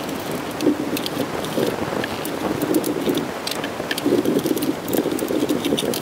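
Steady rubbing and wiping of a cleaning cloth against a sewing machine's plastic case, with scattered light clicks and knocks as parts are handled.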